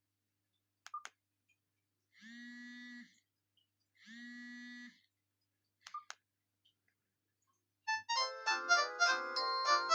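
Alcatel 232 mobile phone: a few short clicks, two separate buzzing tones of about a second each, then, about eight seconds in, a ringtone melody with several notes sounding at once starts playing.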